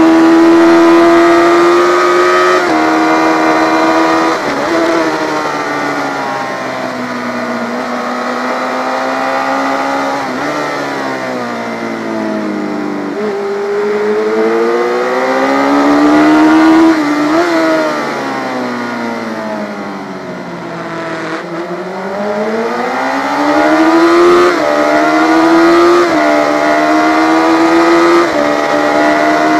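Yamaha FZ600 inline-four racing motorcycle engine, recorded on the bike at race speed. The revs rise and fall through the lap: steps in pitch at each upshift near the start and near the end, and two long falls in revs for corners in the middle, each followed by a climb back up under acceleration.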